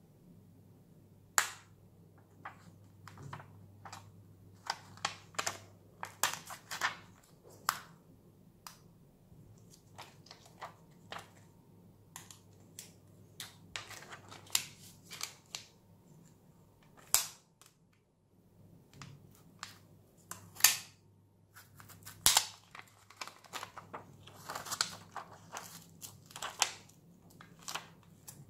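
Irregular sharp clicks and snaps of a thin plastic prying card working along the edge of a Bphone 3's glass back, breaking its strong waterproofing adhesive. The clicks come in clusters, with a few louder snaps among them.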